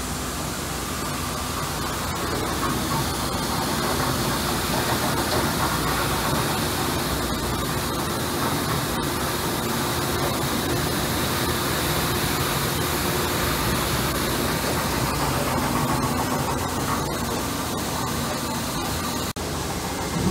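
Winona Van Norman 55RWB rotary table parts washer running a wash cycle: a steady hiss of spraying water with the even hum of the machine beneath.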